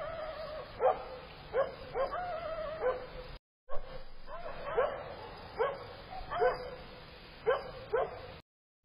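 A dog barking over and over, about one bark a second, a few of the barks drawn out longer. The sound cuts out briefly a few seconds in.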